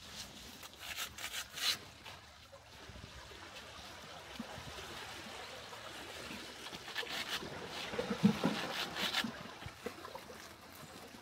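Water lapping and splashing, in two surges of splashes: one about a second in and a longer one from about seven to nine seconds in.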